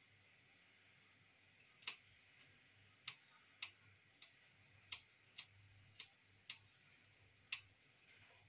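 Small kitchen scissors snipping a raw prawn: about nine sharp, separate clicks as the blades snap shut, roughly one every half second to second.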